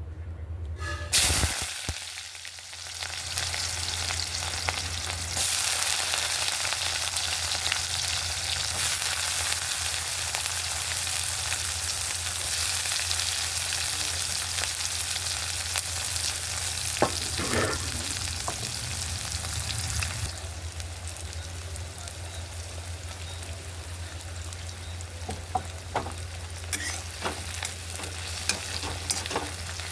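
Food frying in hot oil in a pan, a steady sizzle that starts with a loud burst about a second in as the food goes into the oil. A spoon clicks and scrapes against the pan now and then as it is stirred.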